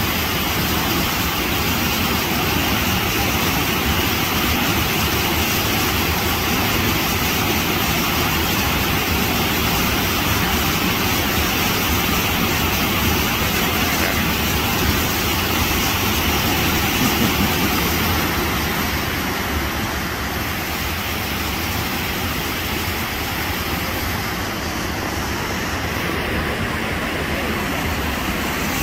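Loud, steady rushing roar of a waterfall's falling water, easing slightly about two-thirds of the way through.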